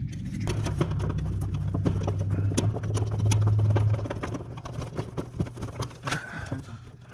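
Quick irregular clicks and taps of wires, spade terminals and a plastic heat sequencer being handled and pulled apart in an HVAC unit's control panel. A steady low hum sits underneath and fades after about four seconds.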